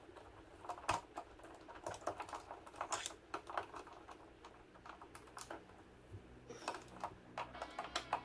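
Irregular light clicks and taps of small fasteners and trim parts being worked loose by hand, coming in loose clusters.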